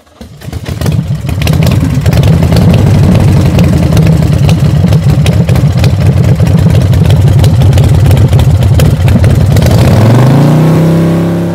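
A loud engine running with many sharp clicks over a steady low note, which rises in pitch as it revs up about ten seconds in.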